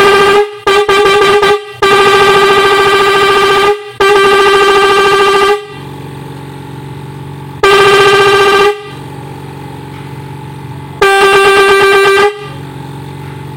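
Electric car horn switched by an intermittent horn module under test. It sounds in a quick run of short beeps at first, then in long blasts of one to two seconds. Between the later blasts a quieter, lower drone carries on.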